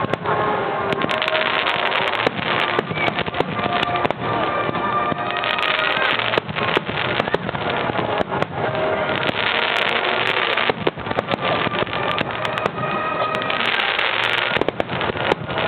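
Fireworks finale: a dense, unbroken barrage of shell bursts and crackling, with music playing underneath.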